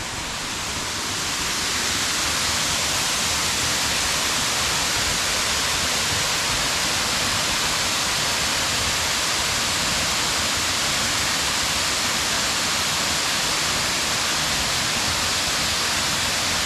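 Waterfall pouring over a rock ledge: a steady rushing hiss that grows over the first couple of seconds and then holds even.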